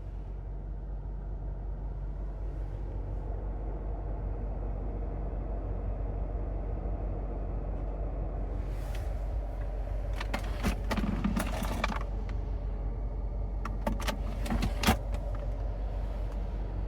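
Steady low road rumble inside a moving car's cabin, with two short spells of light clicking and jingling rattles, one about halfway through and one near the end.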